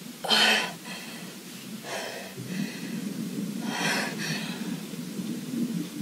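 A person breathing hard: three gasping breaths, the first the loudest, over a low steady rumble.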